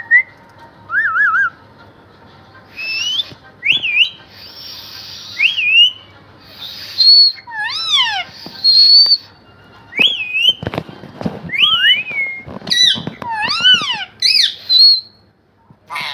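Pet parrot whistling a run of short notes that swoop up and down, broken by harsh squawks and a few sharp clicks.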